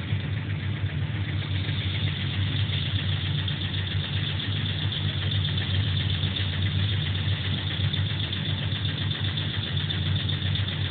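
A machine running steadily: a continuous low hum with a hiss above it.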